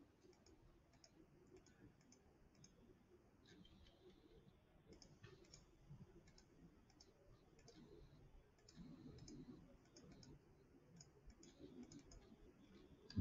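Faint computer mouse clicks at irregular intervals over near-silent room tone.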